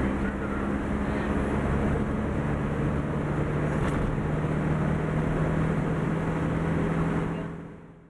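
Engine hum and road noise from inside a moving vehicle, steady, with the engine note dropping slightly a couple of seconds in; it fades out near the end.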